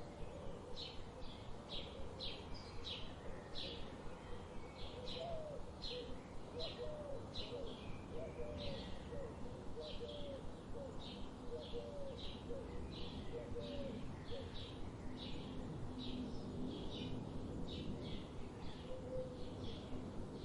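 Birds chirping: short high chirps repeating about twice a second, with a run of lower, short curved calls in the middle, over a steady background hiss.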